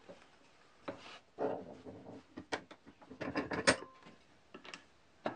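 Light clicks, knocks and short scrapes of wooden parts being handled against each other and against the wooden pads of a bench vise. The knocks are thickest in the second half, the loudest about three and a half seconds in.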